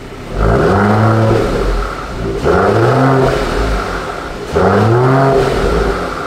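Mercedes-AMG E53 coupe's turbocharged 3.0-litre inline-six revved three times through its stock exhaust: each rev climbs quickly in pitch, holds for a second or so, then drops back toward idle.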